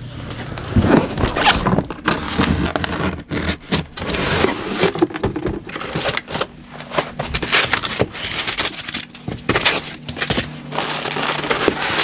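Cardboard box, foam packing blocks and a plastic bag being handled during unboxing: a steady run of scraping, crinkling and rustling with many short knocks and crackles.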